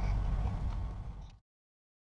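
Steady low rumble inside a moving train carriage, fading out over about a second and then cutting to dead silence.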